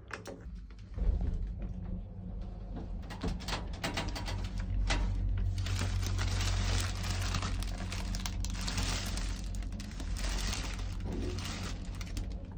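A door pulled open, with a knock about a second in, then a paper shopping bag and crinkly plastic-wrapped party packets rustling as a hand rummages through them, over a steady low hum.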